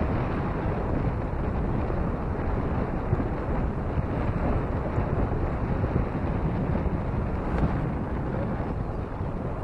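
Steady wind rushing over the microphone on the open roof deck of a descending cable car, a constant low rumbling noise with no distinct mechanical beat.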